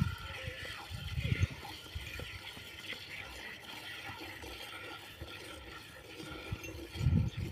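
Milk streams squirting from a cow's teats into a metal bucket during hand milking: an even hissing spray. A few low thumps stand out near the start and again near the end.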